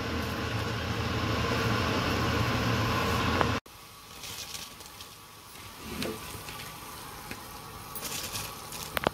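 Spiced liquid boiling in a large cooking pot: a loud, steady rushing noise with a low hum, then, after an abrupt cut about three and a half seconds in, a quieter bubbling hiss. Near the end, a few sharp ticks as dry basmati rice is poured into the boiling liquid.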